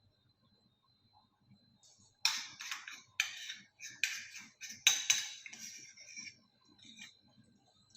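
Clatter of utensils and glassware being handled: a quick run of sharp clicks and knocks starting about two seconds in and dying away after about six seconds.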